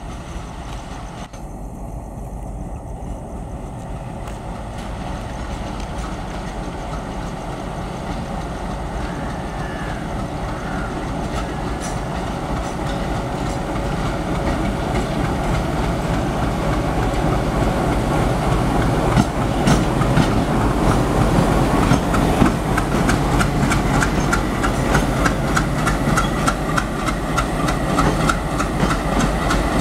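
WDM-3D diesel-electric locomotive, with an ALCO 16-cylinder 251 engine, approaching and passing with a passenger train, growing steadily louder. From about two-thirds of the way in the wheels clatter rhythmically over the rail joints as the locomotive and coaches go by.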